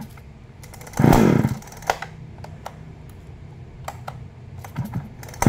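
Husqvarna 339 two-stroke chainsaw being pull-started: a short whir of the starter cord cranking the engine about a second in, a few light clicks, then another pull right at the end. The engine does not catch and run.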